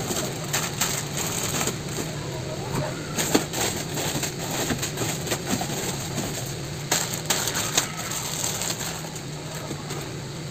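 Plastic product packets crinkling and rustling as they are handled and hung on store shelves, with irregular crackles and a few sharper clicks.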